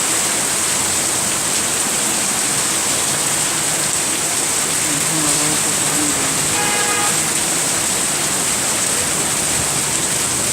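Heavy rain pouring down in a steady, dense hiss. About two-thirds of the way through, a short pitched tone sounds briefly over it.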